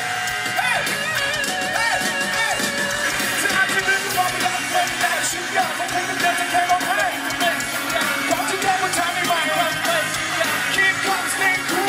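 Live pop-rock band performance: a male singer's voice over the band, with a steady beat.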